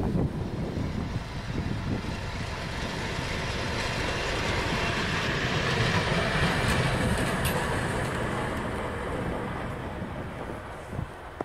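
A train passing close by but out of sight. The rumble of its running gear swells to a peak about halfway through, then fades, with two sharp clicks near the loudest point.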